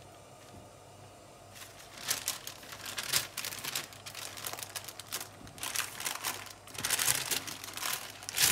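Baking parchment crinkling and rustling as it is folded and wrapped by hand around a joint of meat, starting about a second and a half in.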